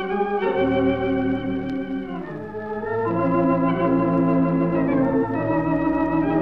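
Wurlitzer theatre pipe organ playing a slow ballad in sustained, full chords that shift every second or two, from an old 1920s–30s recording.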